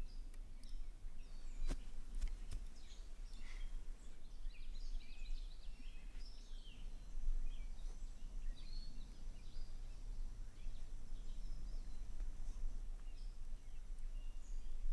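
Outdoor ambience of wild birds chirping and calling over a steady low rumble, with a couple of faint clicks about two seconds in.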